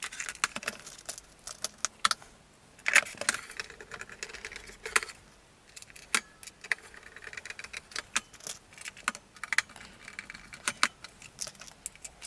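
Handling noise of the plastic casing of a New Adventures of He-Man Powersword toy: scattered clicks, taps and knocks as its two hollow halves are fitted together and small screws and a screwdriver are picked up. The loudest knocks come about three seconds in and again about five seconds in.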